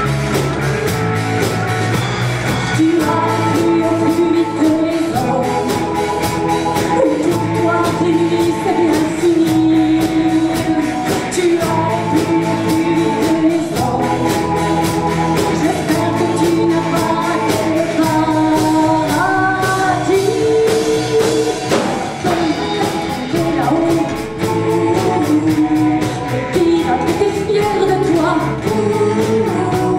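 Live band performing a song: a woman sings lead over electric and acoustic guitars, bass guitar, drums and keyboard, with backing singers. The lead vocal comes in about three seconds in.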